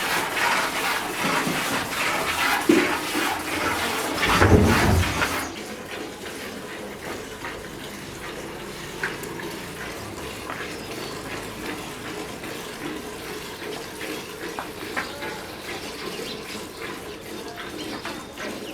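Hand milking of a Murrah buffalo: repeated squirts of milk hitting a pail. The squirting is loud for the first five seconds or so, with a low thump near the end of that stretch, then drops suddenly to a softer, steadier sound.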